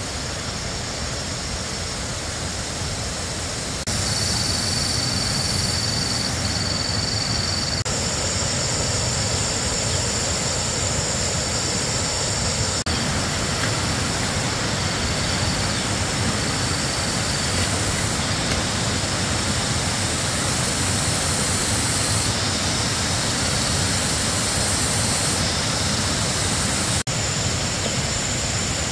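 Outdoor ambience: a steady, even rushing noise with thin, high-pitched steady whines that come and go, the whole bed changing abruptly several times.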